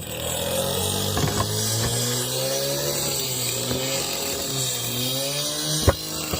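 A small engine or power tool motor running, its pitch slowly rising and falling, with a few sharp knocks.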